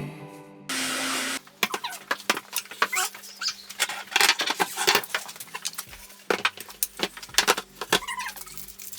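A short burst of a cordless drill-driver, then a long run of irregular small metallic clicks and clinks as the shelf bracket and screws are handled and fitted.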